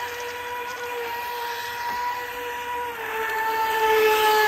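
Electric motor of a Cheerwing RC racing boat whining at a steady high pitch as the boat speeds across the water. About three seconds in, the whine drops slightly in pitch and gets louder as the boat comes close.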